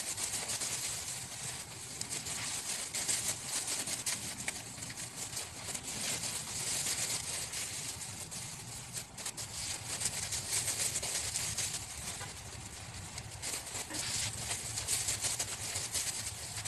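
Plastic bags rustling and crinkling as they are handled, with irregular crackles over a steady high hiss.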